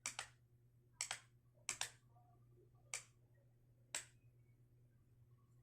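Switch of a Morse signalling light clicking on and off: three quick on-off double clicks, then a single click on and, a second later, a click off. This is the short-short-short-long of the letter V.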